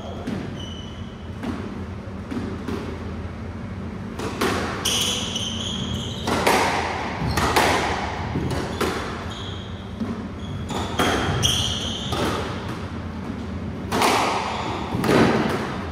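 A squash rally: the ball cracks off rackets and walls about once a second, each hit echoing around the enclosed court. Short high squeaks come in between, from players' shoes on the wooden floor.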